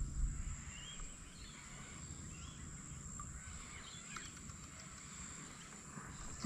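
Quiet riverside ambience: a few faint, short bird chirps over a steady high-pitched insect whine.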